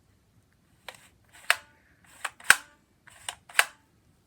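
View-Master viewer's plastic lever clicking as it advances the picture reel, six sharp clicks falling roughly in pairs.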